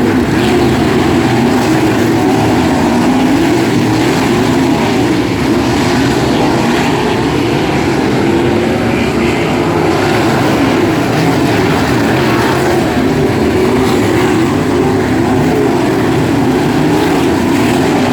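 A pack of 360 sprint cars racing, several methanol-burning V8 engines running hard together, their pitch rising and falling in a steady wavering blend throughout.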